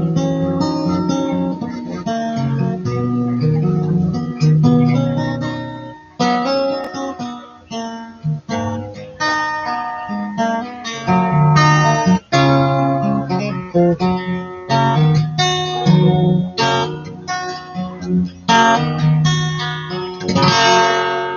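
Acoustic guitar played solo: a melody of picked notes over chords, with a strummed chord ringing out and fading near the end.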